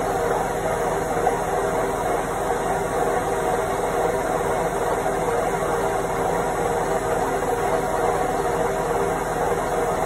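Indesit front-loading washing machine on its spin cycle: a steady mechanical whir with a hum of several even tones, holding level throughout.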